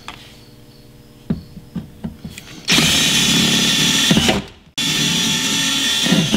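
Cordless drill with a twist bit drilling into the sheet-metal speaker mount of a car door. It starts up about three seconds in, runs steadily, stops briefly, then runs again.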